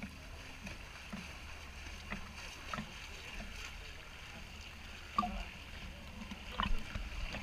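Swimming-pool water lapping and sloshing against a waterproof camera held at the surface, over a steady low rumble. Two short louder noises come near the end.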